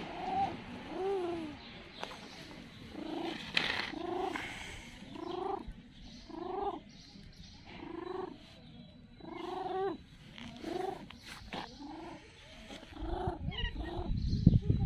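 Street cat meowing over and over, about a dozen short rising-and-falling meows roughly a second apart. A low rumble comes in near the end.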